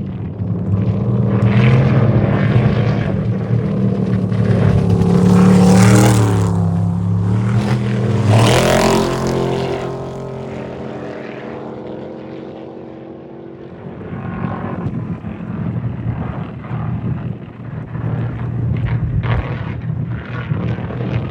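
Off-road race vehicle engines running hard as they pass at speed. The loudest pass comes about six to nine seconds in, its pitch dropping as it goes by. It fades to a lull, and another vehicle approaches from about fourteen seconds.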